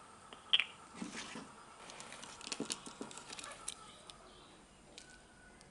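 A baby monkey gives one short high squeak about half a second in, followed by a run of small clicks and rustles between about one and four seconds in.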